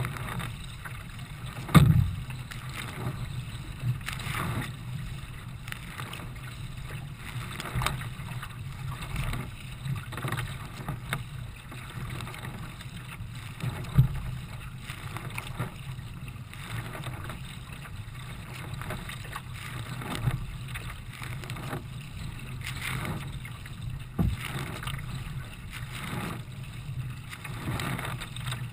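Racing kayak being paddled hard through choppy water: water rushing and slapping at the bow, with a splash from each paddle stroke about once a second. A sharper knock about two seconds in and another near the middle stand out above the strokes.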